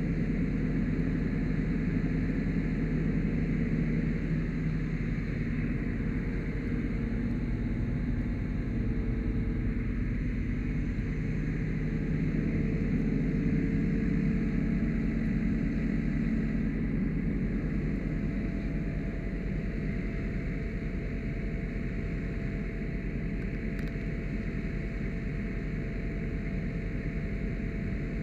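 Fire engine's diesel engine running steadily at constant speed as it pumps water into a hose line, a low hum with a faint higher whine.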